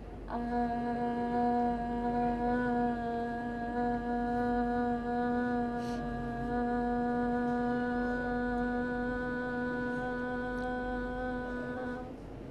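A woman's voice holding one long 'aah' vowel at an even pitch for about eleven and a half seconds on a single breath, stopping abruptly near the end. It is a sustained-phonation exercise, practising control of breath and voice.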